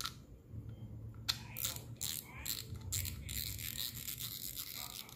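Used Shimano Alivio 2500 spinning reel being handled: a few sharp clicks about a second in, then a couple of seconds of dense scraping and rattling from its metal and plastic parts.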